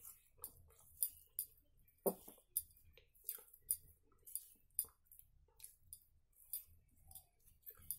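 Eating rice and dried-fish curry by hand: irregular sharp, wet clicks and smacks of chewing and of fingers mixing food on a steel plate, one or two a second, the loudest about two seconds in.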